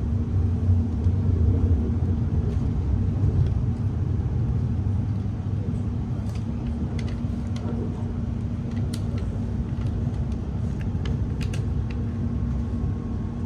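Inside a Class 701 'Arterio' electric train running: a steady low rumble with a constant hum, and scattered light clicks and ticks in the second half.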